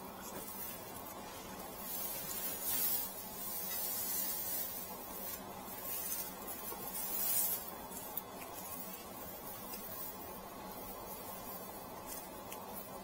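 Dry straw rustling and crackling in a few soft swells as it is twisted and woven into a straw sandal, over a steady low room hum.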